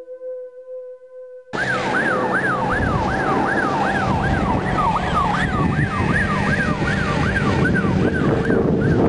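A few soft sustained tones, then suddenly a loud siren wail that rises and falls about twice a second over a rushing noise, growing fainter near the end.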